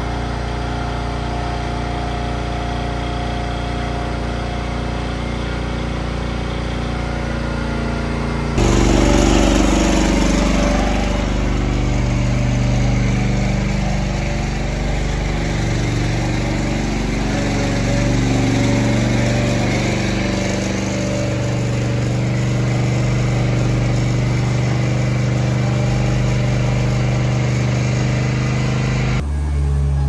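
A motor runs steadily with an even hum as milk is pumped through a hose into the calves' trough. About a third of the way in the sound changes abruptly to a louder, rougher engine drone with a hiss over it, and changes again just before the end.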